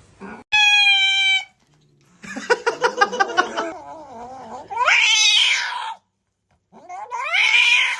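Domestic cat yowling: a series of long, drawn-out cries, one wavering, others rising and falling in pitch, with short pauses between.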